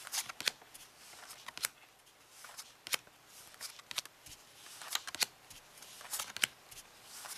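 Bicycle playing cards being dealt one at a time from the hand onto a pile: a dozen or so light, sharp card snaps and clicks, irregularly spaced about every half second.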